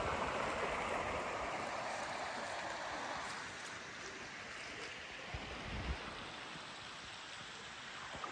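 Shallow river running over rocks, a steady rushing ripple that turns softer about three seconds in.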